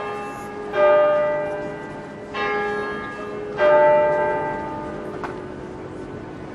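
Church bells ringing: three strikes about a second and a half apart, each on a different note, each ringing on and slowly fading.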